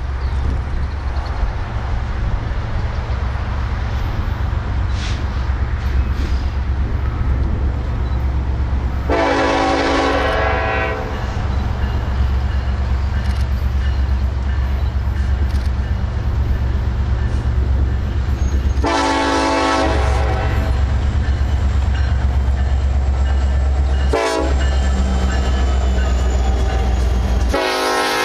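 Diesel freight locomotive's horn sounding the grade-crossing signal, two long blasts, a short one and a final long one, over the steady low rumble of the train's diesel engines as it approaches and passes.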